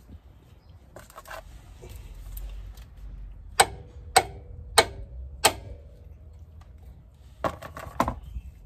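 Hammer blows on a ball joint separator to force the BMW E36's front control arm ball joint loose: four sharp metallic strikes about two-thirds of a second apart, each with a brief ringing tone, then two more near the end. Softer clanks of the tool being set in place come about a second in.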